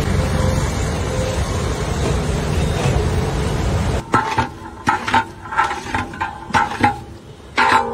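Liquid sloshing and rushing in a large aluminium cooking pot as a long metal ladle stirs the biryani masala. About four seconds in this gives way to a run of sharp metallic clanks with short ringing as the ladle knocks against the pot.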